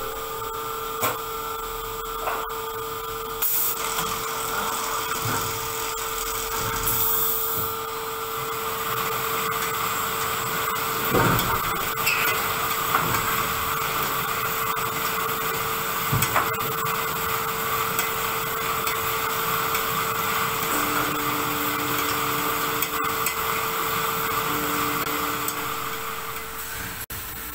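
Automated pallet nailing line running: a steady machine hum with scattered knocks and clatters, the clearest thump about eleven seconds in. A second, lower hum switches on briefly twice near the end.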